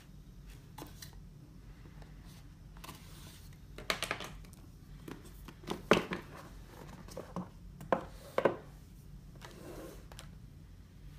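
A cardboard smartphone box being handled and opened: several sharp taps and scrapes, then a soft sliding rustle near the end as the lid comes off.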